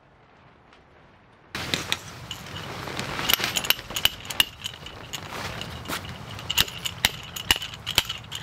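Hammer driving a metal tent peg into straw-covered ground: a quick, irregular run of sharp metallic strikes, several a second, each with a bright ringing ping, starting suddenly about a second and a half in.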